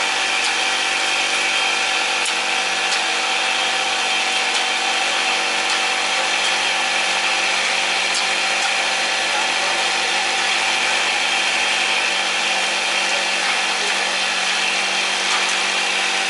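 A machine running steadily with a dense, high whirring and grinding noise that does not change.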